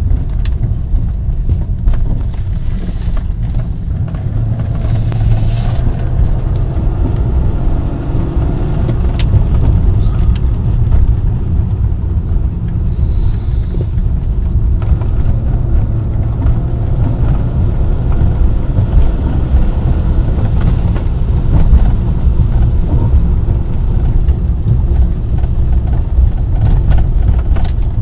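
BMW car's engine and road noise heard inside the cabin while driving at low cruising speed: a steady low rumble.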